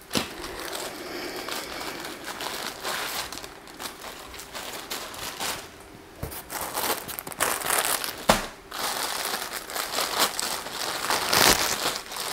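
Plastic packaging crinkling and rustling in irregular handfuls as a bathing suit is unwrapped and handled, with a few sharper crackles, the loudest about eight seconds in.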